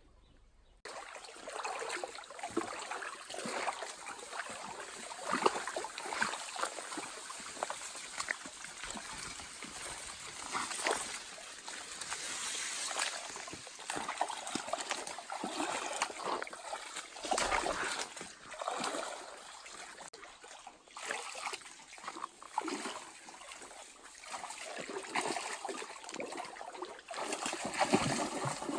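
Shallow stream water trickling and splashing, with irregular splashes of feet wading through it.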